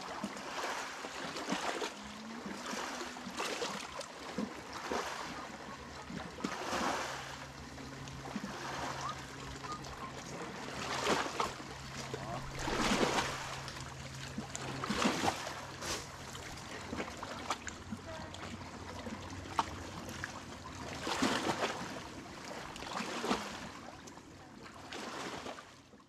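Small waves lapping and washing against the shore rocks, each wash swelling and falling back about every two seconds, with faint distant voices. A faint steady low hum runs for several seconds in the middle, and the sound fades out at the end.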